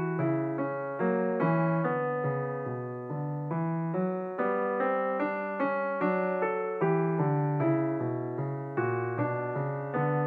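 Background piano music: chords and melody notes struck at an even, unhurried pace, each note ringing and fading.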